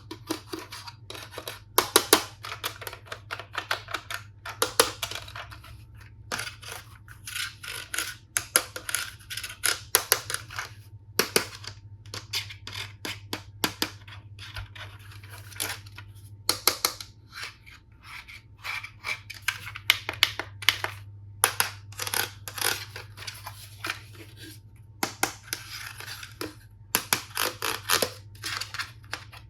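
Plastic toy tools and packaging being handled and unboxed: quick, irregular runs of clicks, taps and short scrapes, over a steady low hum.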